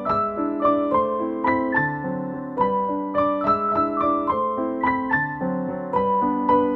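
Background music on piano or electric piano: a gentle melody over chords, new notes struck about every half second.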